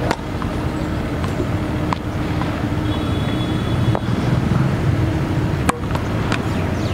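Sharp knocks of balls being struck by a tennis racket and a cricket bat, the loudest just after the start and near the end, over a steady low rumble.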